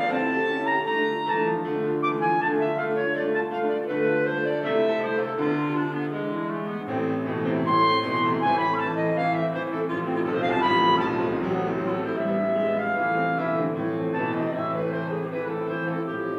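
Clarinet playing a classical solo line with grand piano accompaniment.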